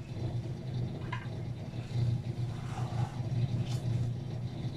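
A steady low hum runs throughout, with a few faint soft sounds from a gloved hand mashing and mixing spiced potato filling in an enamel dish.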